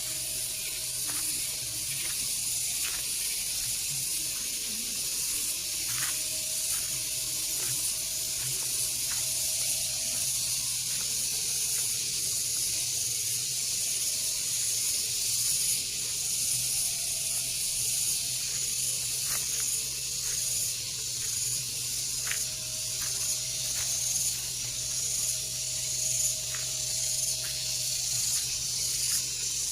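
Rice-paddy ambience: a steady, high-pitched hiss, with faint scattered clicks and small splashes, over a low steady hum.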